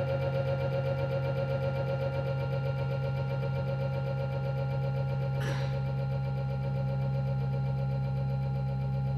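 Electronic drone from a dance soundtrack: a strong low hum with several steady higher tones above it, fluttering quickly at first and then evening out. A brief rushing sweep passes through about five and a half seconds in.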